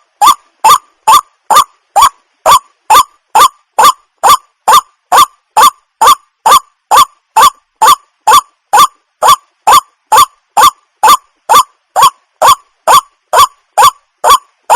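White-breasted waterhen (wak-wak bird) calling: a loud, short, honking 'wak' note repeated at a perfectly even pace of about two and a half calls a second, without a break.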